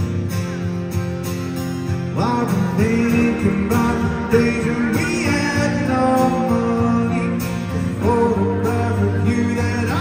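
Live music: a man singing to his own acoustic guitar, the voice coming in about two seconds in and again near the end over steady guitar chords.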